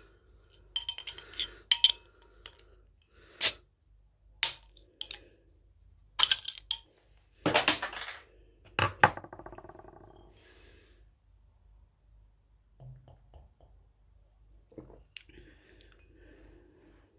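Metal bottle opener clinking and knocking against a glass bottle's crown cap, with a run of sharp clicks as the cap is pried off. After about nine seconds, a short fast rattle dies away, like the loose metal cap settling on a hard surface.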